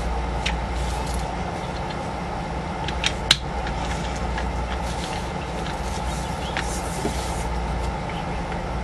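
A few small, sharp plastic clicks as loose pieces of a 3x3 puzzle cube are handled and fitted together, the loudest about three seconds in, over a steady background hum and hiss.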